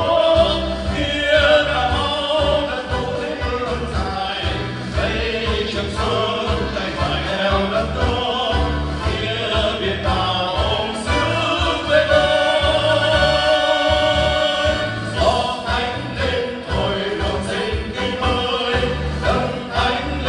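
Three men singing a song together through microphones and a PA, over an accompaniment with a steady low beat. They hold one long note for about three seconds in the middle.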